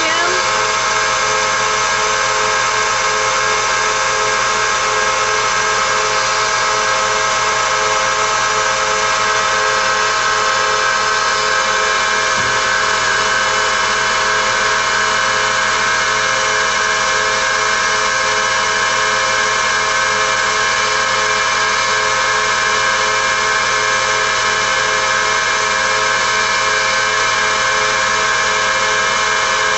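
A Tsugami BS32C Mark II CNC Swiss-type lathe running: a steady machine whine and hum made of several held tones, unchanging in pitch and level.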